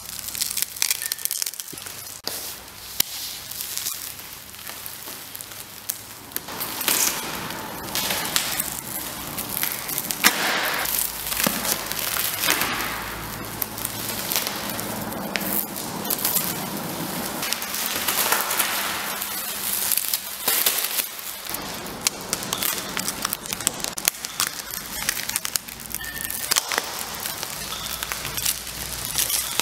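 Dense crackling and rustling noise full of small clicks, swelling and fading in waves every few seconds.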